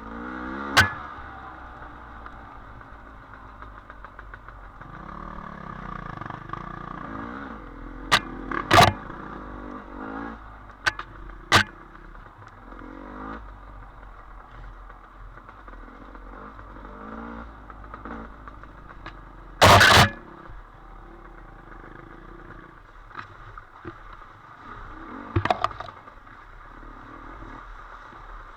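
Dirt bike engine running on a trail, its pitch rising and falling with the throttle, broken by several sharp knocks and clatters. The loudest knock comes about two-thirds of the way through.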